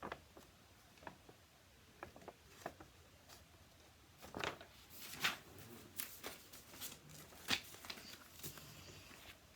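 Scattered light clicks and rustles of objects being handled, busier from about four seconds in.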